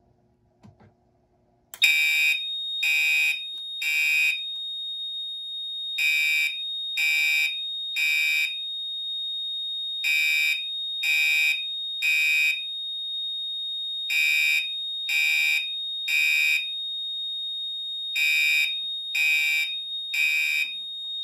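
Gentex Commander 3 fire alarm horn sounding in code 3: groups of three loud blasts, about 4 s apart, starting about two seconds in. The fire alarm panel has gone into alarm from a smoke detector being tested, and a steady high-pitched tone sounds beneath the blasts.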